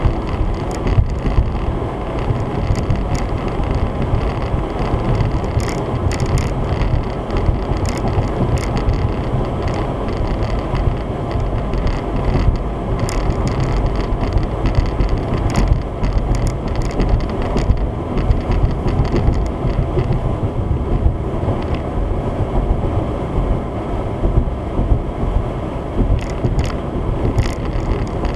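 Steady road and engine noise of a car being driven, heard inside the cabin, with faint clicks now and then.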